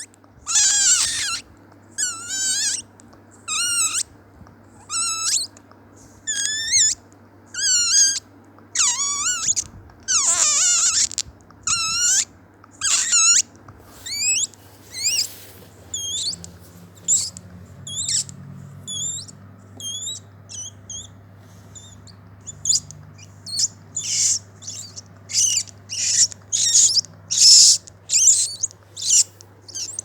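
A person imitating dolphin calls with their voice: a series of high, wavering squeaks and whistles, about one a second, coming faster and shorter in the last third.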